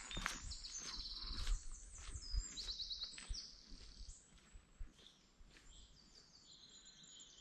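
Footsteps walking away along a wet stony dirt path, fading out about halfway through. Small birds sing throughout, with quick high trills of repeated notes.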